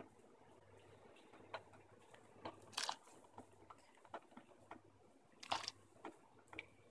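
Faint, irregular ticks and small pops from salted water heating in a stainless steel pot with potato sticks in it, as bubbles begin to rise toward the boil.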